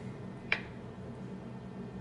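Quiet room tone with a steady low hum, and one short light click about half a second in.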